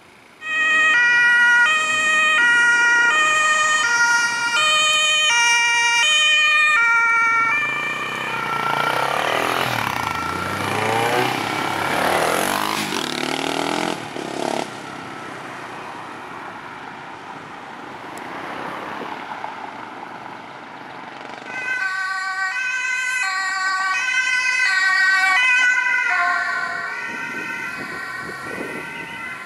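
German two-tone emergency siren on a DRK ambulance, alternating between two pitches, then smearing into sweeping tones with engine and tyre noise as the ambulance passes close. After a quieter stretch of traffic, a second two-tone siren, from an emergency doctor's car, starts suddenly about 22 seconds in.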